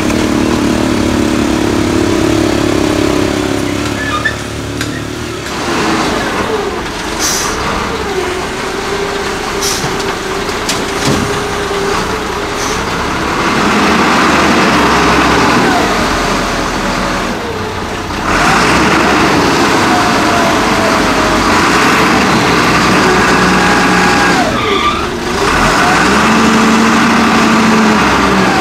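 Diesel engine of an XCMG LW300FN wheel loader working, its pitch rising and falling over and over as it revs while scooping and lifting. There are a few short clicks or knocks in the first half.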